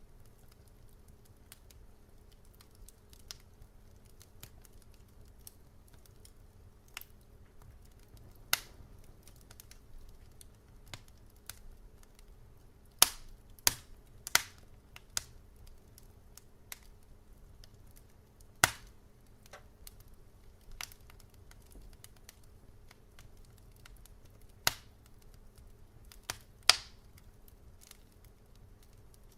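Wood fire in a fireplace crackling: scattered sharp pops over a low, steady rumble, with a quick run of loud pops a little before halfway and a few more single loud pops later.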